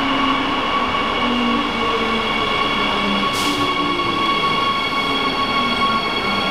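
DB Class 147 electric locomotive drawing double-deck coaches into a platform and slowing, with wheel-and-rail rumble, several steady high-pitched squeals from the braking wheels and low motor tones. A brief hiss comes about three seconds in.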